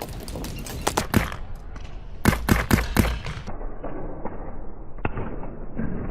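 Paintball marker shots: a quick scatter of pops in the first second, then four louder pops about a quarter second apart between two and three seconds in. Wind rumbles on the microphone throughout.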